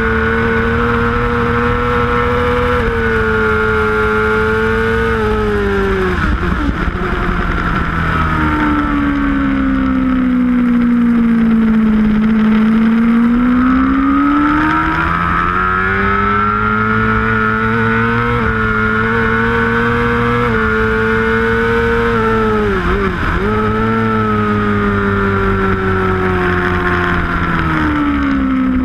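750cc superbike engine heard from onboard at racing speed, revving up through the gears with quick upshifts. Twice its pitch drops sharply as it brakes and downshifts, and through the middle it pulls slowly up from low revs out of a slow corner.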